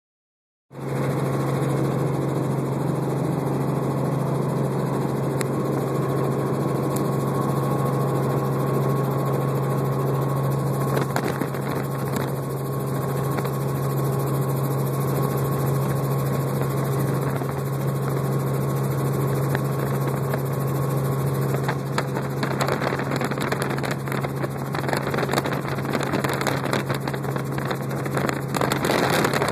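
Helicopter's engine and rotor heard from inside the cabin in flight: a loud, steady drone with a strong low hum. Irregular crackling rides over it in the last several seconds.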